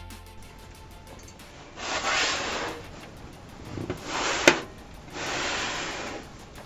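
Handling noise from computer hardware being worked on by hand: three short scraping rustles, each about a second long, with one sharp click about four and a half seconds in.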